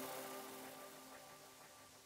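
Background music ending: the last chord rings out and fades away.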